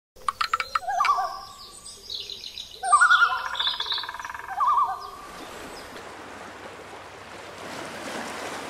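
Bird calls: a wavering, warbled call heard three times, with higher short notes over it. From about five seconds in, a steady soft hiss is left.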